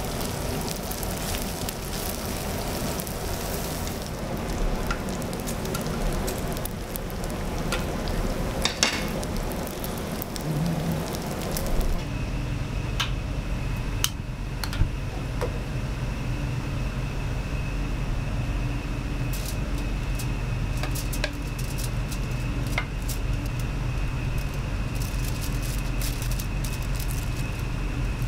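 Pork belly and kimchi sizzling on a hot griddle, with the odd click of metal tongs. About twelve seconds in the sound changes to a steady low kitchen hum with a thin high tone, broken by occasional clicks.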